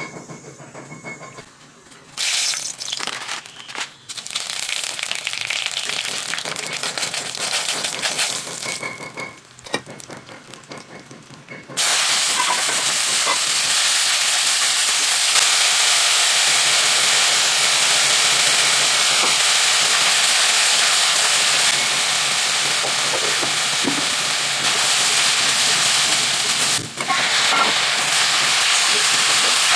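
Sliced onions sizzling in hot oil in a wok, a loud steady hiss that starts abruptly about twelve seconds in after a quieter stretch, with a brief dip near the end as tomatoes go in.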